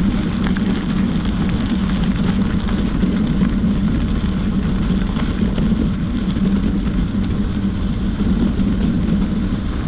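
Steady, loud low rumbling noise with faint scattered crackles, unchanging throughout.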